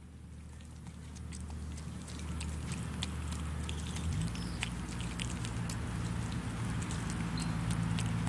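Capuchin monkey chewing a mushroom close by: many short wet clicks and smacks of nibbling and chewing, over a steady low hum whose pitch steps up partway through. The sound fades in at the start.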